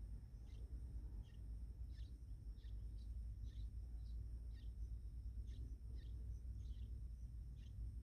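Bulbul nestlings begging with short, high cheeps, about two a second, over a low steady rumble.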